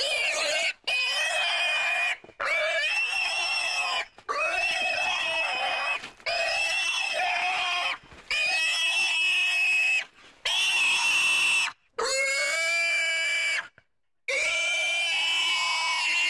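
A pig squealing: a string of long, high squeals, each one to two seconds, cut apart by short sudden breaks. The squeal starting about twelve seconds in stutters with a rapid pulsing.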